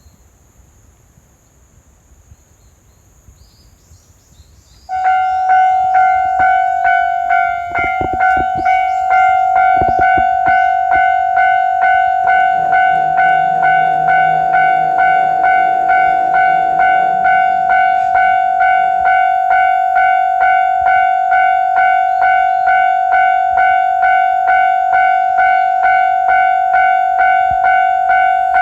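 Japanese railway level-crossing warning bell starting suddenly about five seconds in and ringing on in a steady, fast ding-ding of about two strokes a second, signalling that a train is coming. A few knocks follow soon after it starts, and from about twelve to nineteen seconds in a lower diesel engine hum rises and fades under the bell.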